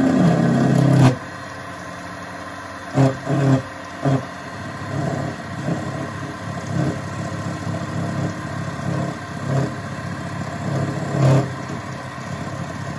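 Small bench drill press running with a milling bit, cutting metal as the workpiece is fed very slowly under it. A steady motor whine runs under uneven cutting chatter. The cut is heaviest in the first second, with a few louder bites around three to four seconds in and again near the end.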